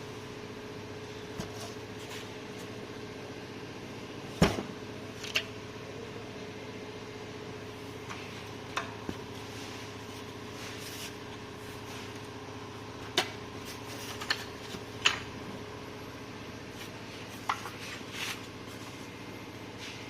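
Scattered sharp clicks and knocks of tools and parts being handled, about a dozen at irregular intervals, the loudest a little over four seconds in, over a steady hum.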